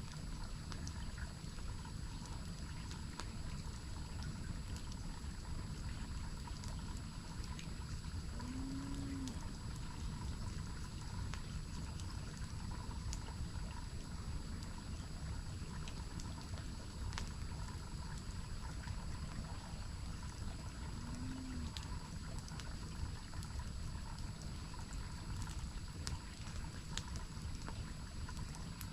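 Steady rush of a waterfall, with faint scattered crackles from a campfire. Twice, about 9 and 21 seconds in, a short low hooting call that rises and falls briefly.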